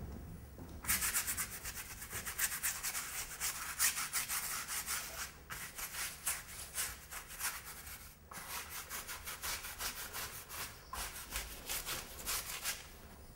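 Fast, scratchy scribbling strokes of a hand-held drawing stick rubbed back and forth across a canvas, hatching dark lines into the paint. The strokes start about a second in, pause briefly twice, and stop just before the end.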